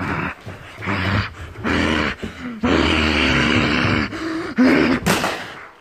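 A person grunting and yelling in wordless, strained cries during a mock fight, one cry held for about a second and a half in the middle, the loudest one near the end.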